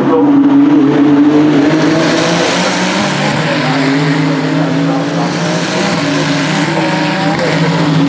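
Several Ferrari Challenge race cars running together in a pack through a corner, their engine notes overlapping and shifting in pitch as they brake and accelerate. The sound grows brighter and fuller in the middle as the cars pass closest.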